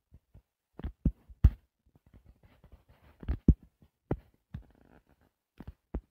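Irregular taps and knocks on a tablet's touchscreen during drawing: several sharp, louder thumps among fainter ticks.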